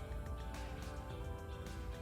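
Background music: held instrumental notes that change pitch, with light taps.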